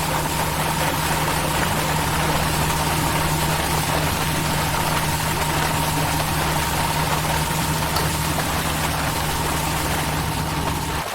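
Fire engine's diesel running steadily at the fire, a constant engine drone with a steady higher whine over a hiss; it cuts off abruptly near the end.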